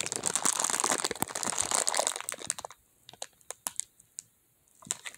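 Plastic toy packaging crinkling and crackling as it is worked open by hand, dense at first, then thinning after about two and a half seconds to a few scattered sharp crackles.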